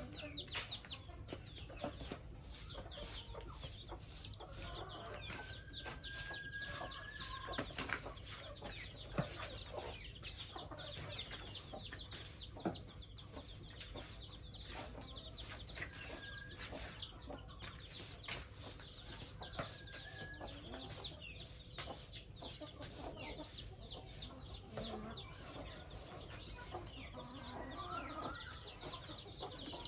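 Chickens clucking and calling, with many short high chirps and clicks, over a steady low hum.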